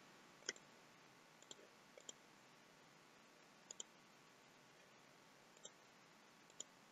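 Faint computer mouse button clicks, about eight scattered through a near-silent stretch, some coming in quick pairs.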